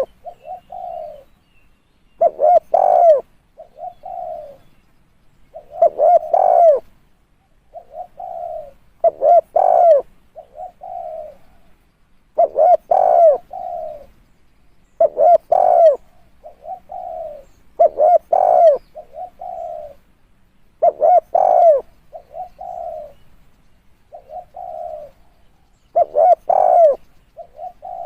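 Spotted dove calling: a phrase of low coos repeated about every three seconds. Each phrase opens with a couple of notes that rise and fall in pitch and ends with softer, flatter coos.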